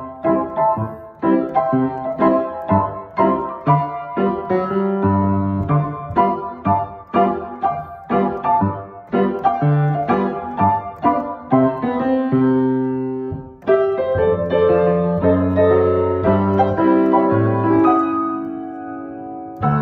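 Grand piano played solo: quick, evenly spaced chords for most of the first two-thirds, then after a brief break slower, held chords that grow softer near the end.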